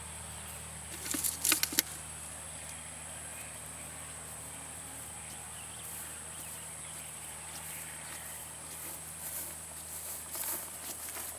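Steady high-pitched insect drone with a low hum beneath it, broken by a quick cluster of sharp clicks about a second and a half in.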